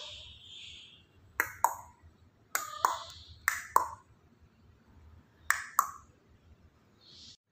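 Four pairs of short, sharp clicks with a brief ping to each, the two clicks of a pair about a quarter second apart.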